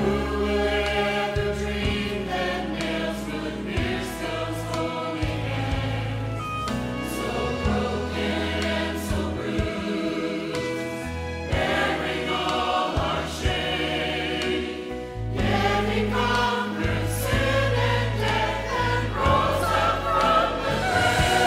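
Church choir singing with instrumental accompaniment: sustained chords over a steady bass, shifting every few seconds, and growing fuller and louder in the last few seconds.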